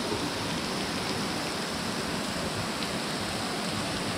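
Waterfall: a thin curtain of water dropping off a rock overhang and splashing onto the rocks and pool below, a steady, even hiss.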